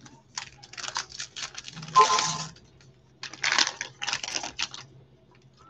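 Foil wrapper of a baseball card pack crinkling and tearing as gloved hands rip it open, in two spells of crackling with the sharpest tear about two seconds in.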